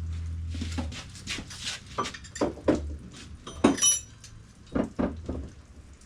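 Metal tools and engine parts clinking and knocking as they are handled, in an irregular run of sharp knocks, with one bright ringing clink about four seconds in.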